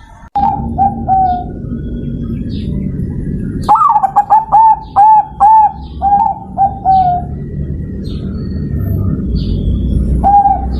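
Zebra dove (perkutut) cooing in short rippling phrases of quick staccato notes. There is a brief phrase near the start, a longer run of about eight notes around four seconds in, and another phrase beginning near the end, over a steady low background rumble.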